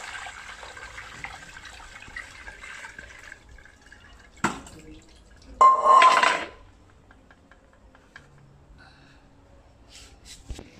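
Liquid pouring from a small stainless steel pot through a perforated aluminium sieve into a large pot of soup, for about three seconds. Then a sharp knock and, about six seconds in, a louder metallic clatter with a ringing note as the cookware is handled.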